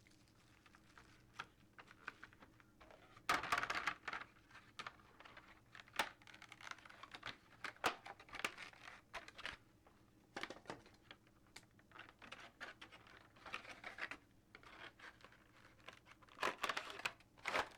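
Rustling and crinkling of packaging, with small sharp clicks and taps from handling model railroad cars. The loudest rustles come about three seconds in and again near the end.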